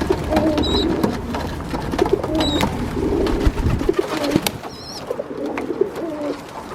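Feral pigeons (rock doves) cooing in short phrases, with a thin, high squeak from a dove three times, about a second in, two and a half seconds in and near five seconds. Sharp taps run throughout.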